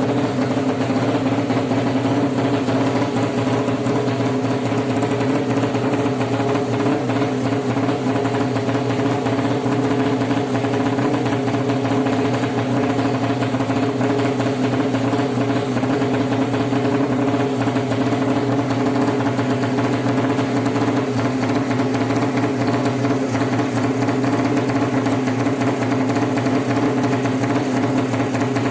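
Racing motorcycle engine, a Suzuki Satria FU bored up to 200cc, running at a steady idle.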